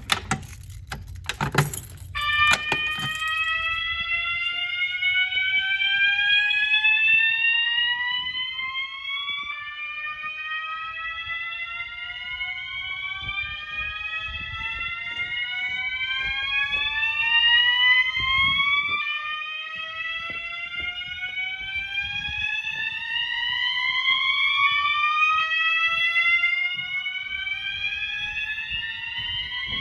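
System Sensor horn strobes sounding the slow whoop fire-alarm tone: a tone sweeping slowly upward and starting again low, over and over, with several horns overlapping out of step. A few sharp clicks come just before the horns start, about two seconds in.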